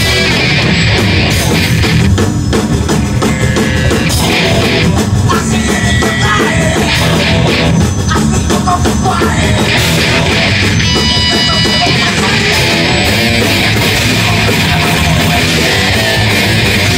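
Live heavy metal band playing loud and without a break: electric guitars and a drum kit.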